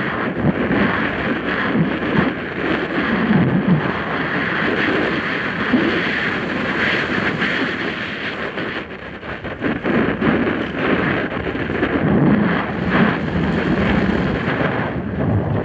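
Wind rushing over a helmet camera's microphone with the continuous crunch and rattle of mountain bike tyres and frame bouncing down a rocky dirt trail at speed, full of small knocks.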